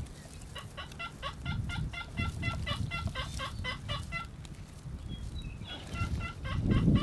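Turkey calling: a fast series of short clucking, cutting notes, about seven a second, in two runs. A low rumble underneath swells near the end.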